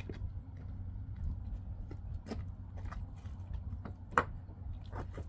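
Scattered clicks and knocks from handling a kayak and its gear while loading it onto a pickup truck, one sharp knock about four seconds in, over a steady low rumble.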